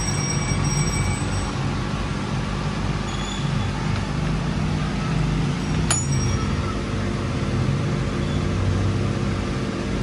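Steady low mechanical rumble with a hiss over it, with one sharp click about six seconds in.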